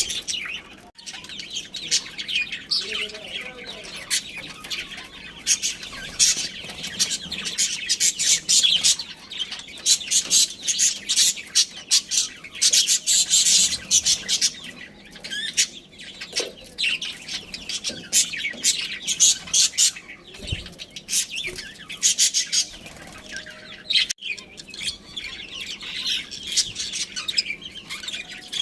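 Budgerigars chirping and chattering, many rapid high-pitched chirps overlapping with only brief pauses.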